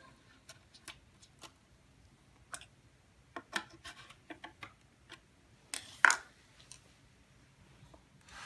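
Scattered light clicks and knocks of small plastic fittings and particleboard cabinet panels being handled during flat-pack assembly, the loudest a close pair of knocks about six seconds in.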